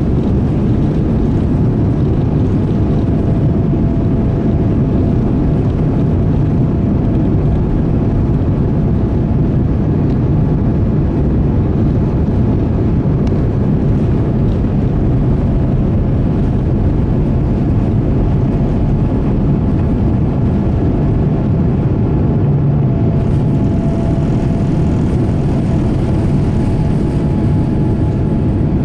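Boeing 787-9's GEnx turbofan engines at takeoff thrust, heard from the passenger cabin as a loud, steady roar and rumble during the takeoff roll.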